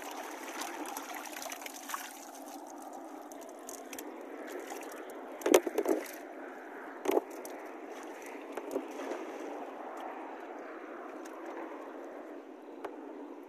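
Shallow lake water sloshing and trickling as a wet cast net is hauled up out of it and waded through. A few sharp thumps come about five and a half to seven seconds in.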